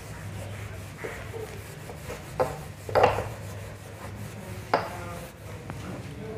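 Cloth wiping marker off a whiteboard, a steady rubbing with a few louder strokes about two and a half, three and five seconds in.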